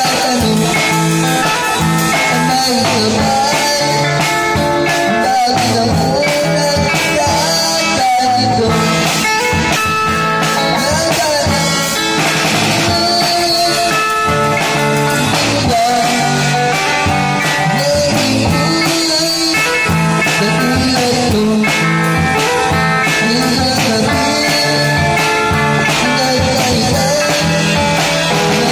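Live street music: a child drummer playing a full drum kit with cymbals, together with an electric guitar amplified through a portable speaker, in a steady rock-style groove.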